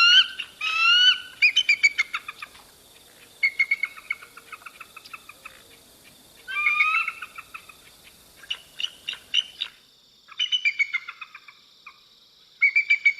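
Eagle calling: bursts of high, thin, rapid piping notes, some slurred upward, repeated about six times with short pauses between.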